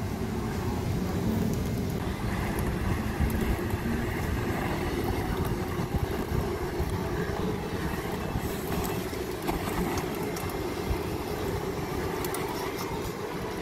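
Glutton battery-electric street litter vacuum running, its suction fan giving a steady rushing noise as the nozzle is swept along the pavement. Scattered clicks come through in the second half.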